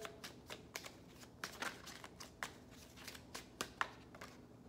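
A deck of oracle cards being shuffled by hand: an irregular run of soft, short card clicks and flicks, a few sharper than the rest.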